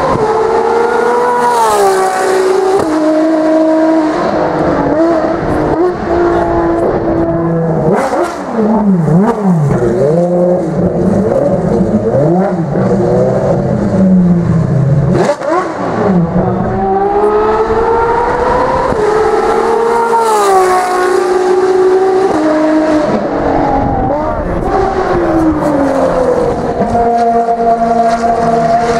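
Ferrari FXX K V12 engines at full throttle. The pitch climbs and then drops sharply at each upshift, near the start and again about 21 seconds in. In between, the revs rise and fall quickly several times, and the engine holds a steady note near the end.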